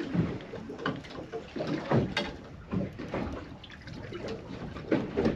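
Water lapping and slapping against the hull of a small drifting boat, with irregular knocks.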